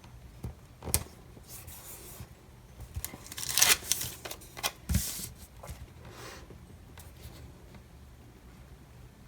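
Paper sticker sheets and sticker-book pages being handled: a sharp tap, rustling, and a louder papery rustle about three and a half seconds in, with a thump about five seconds in.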